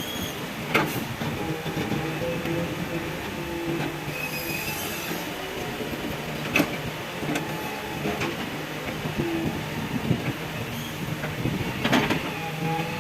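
Hitachi EX200 excavator working: diesel engine running under load, with its hydraulics changing pitch as it swings and digs. A brief high squeal is heard about four seconds in, and a few sharp metal clanks come at intervals.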